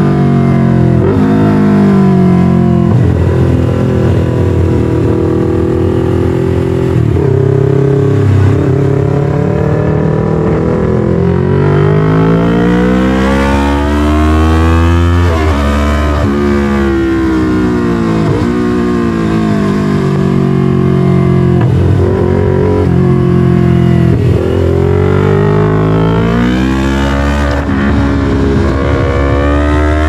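Yamaha MT-03's 321cc parallel-twin engine through an SC-Project full exhaust, heard while riding. The engine pitch climbs and drops again and again as the bike accelerates, shifts and backs off.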